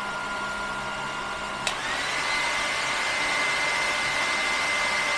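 A hair dryer running off a power bank's inverter, with the power bank's own cooling fans, a steady blowing hum with a whine. About a second and a half in there is a click, and the whine rises in pitch and holds higher as the dryer goes up to its 1400 W setting, a load above the inverter's 1000 W rating.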